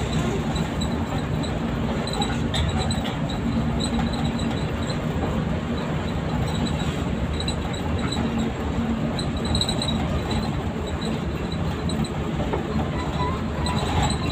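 Cabin noise of a moving coach bus: a steady engine drone and road noise, with short high-pitched squeaks from the body coming and going.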